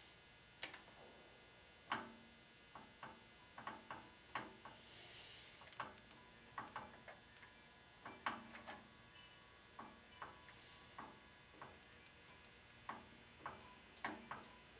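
Faint, irregular light clicks and taps of small metal parts, as the Glock slide in the drill press setup is nudged into line under the drill bit.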